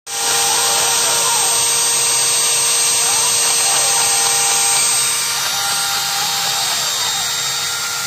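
Small CNC router milling a pocket in wood: the spindle and bit run with a steady whine over a loud hiss of air from the homemade 12 V blower-fan cyclone dust extractor. Stepper motor tones rise and fall as the axes speed up and slow down. The overall level drops a little about five seconds in.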